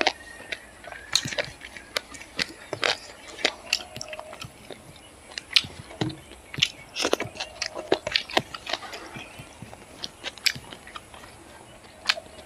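A person eating by hand with wet, irregular chewing, lip smacks and sharp mouth clicks. The clicks thin out for a couple of seconds near the end.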